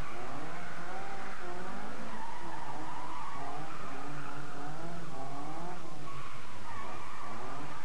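Rally car engine revving hard up and down, about once a second, as the car is flung left and right between slalom cones, with tyres skidding and squealing. The revs drop briefly about six seconds in before picking up again.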